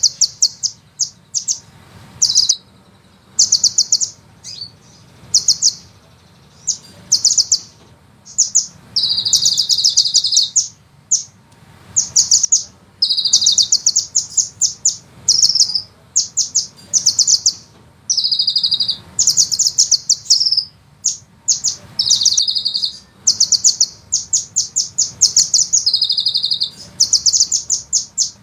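Sunbird song: bursts of very fast, high-pitched trilled notes following one another closely, some drawn out into long rolling trills.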